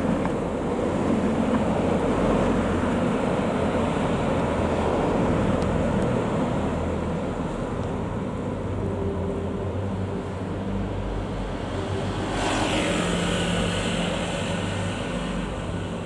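Steady road traffic: cars passing on a multi-lane city road, engine rumble and tyre noise. About twelve seconds in, a closer vehicle passes with a louder, hissier tyre sound.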